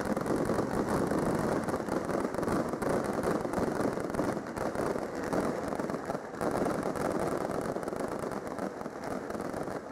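Fireworks crackling: a dense, steady patter of many small pops from bursting crackle stars.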